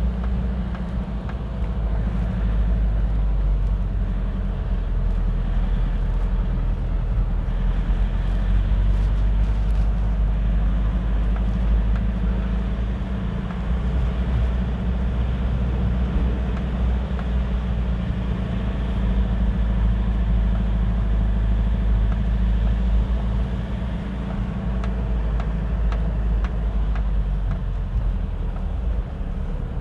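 Car engine and road noise heard from inside the cabin as the car climbs a winding road, a steady low rumble.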